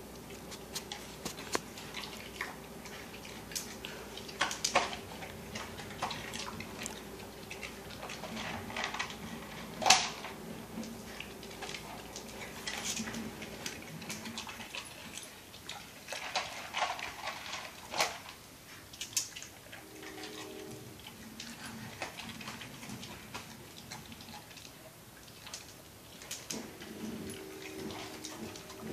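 Scattered light taps, clicks and rustles on a tile floor as a baby handles a plastic snack cup and pats the floor while a large dog noses and licks up dropped puffs beside her, with one sharper knock about ten seconds in. A faint steady hum runs underneath.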